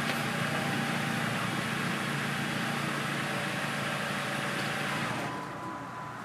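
2010 Jeep Patriot's engine idling steadily, then dropping away about five seconds in.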